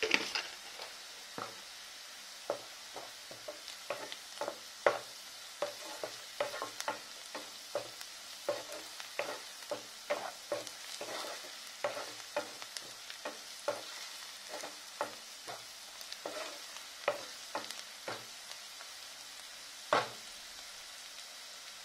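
Chopped onions sizzling in hot oil in a nonstick kadai, now turning translucent, while a wooden spatula stirs them with irregular knocks and scrapes against the pan, a few per second. One louder knock comes near the end.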